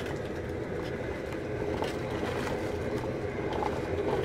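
Steady roar of the burner under a seafood boil pot, with the water at a rolling boil and a few faint ticks over it.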